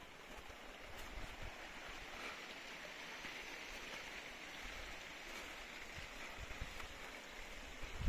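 A small mountain stream running over stones, a steady rushing hiss, with a little low wind buffeting on the microphone now and then.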